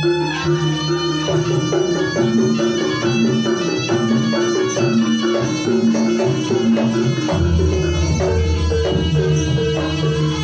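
Live Javanese jaranan ensemble music: a reedy wind instrument plays a held melody over kendang drumming and repeated pitched beaten-metal patterns, with a deep low note coming in about seven seconds in.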